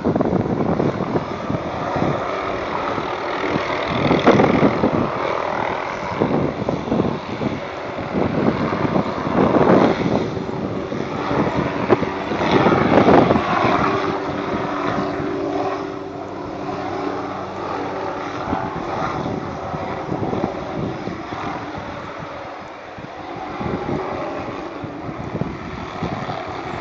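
Helicopter flying a load of cut Christmas trees slung on a line beneath it, its rotor and engine noise rising and falling in several louder swells as it moves over the hillside.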